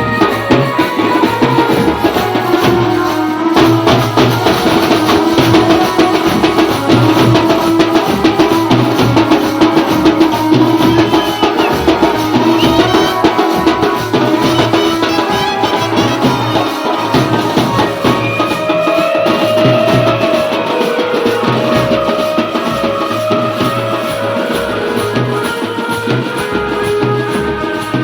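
Music: sustained melody lines over dense, fast drum and rattling percussion.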